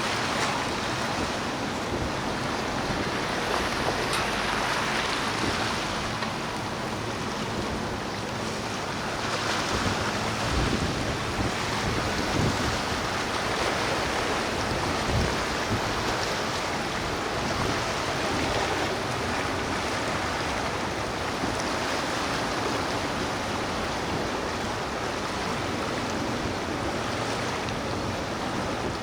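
Steady rush of wind and water from waves, with wind buffeting the microphone.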